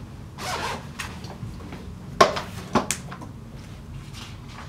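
A zip rasps open in short pulls, then two sharp metallic clicks about half a second apart as a ring binder's rings are snapped open, with paper rustling as the pages are handled.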